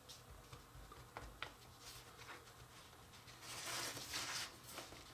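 Faint handling sounds of sticky cookie dough being pressed into a floured plastic tray: a few light taps, then a rustling scrape about three and a half seconds in that lasts about a second.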